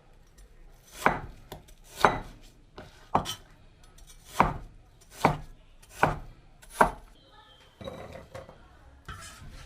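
Kitchen knife chopping a peeled snow pear into small chunks on a cutting board: seven sharp strokes about one a second, then quieter, softer sounds near the end.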